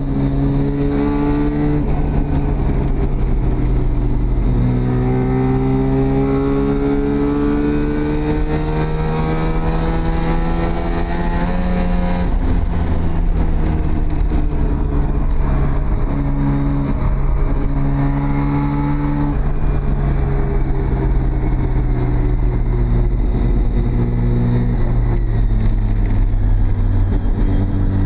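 Mazda RX-7's bridge-ported 12A two-rotor rotary engine running under load while driving, heard from inside the cabin. The engine note climbs in pitch through each gear and drops back at the shifts, several times over.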